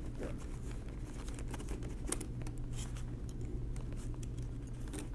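Faint light clicks and rustles of small steel parts being handled on a paper towel, over a steady low background hum.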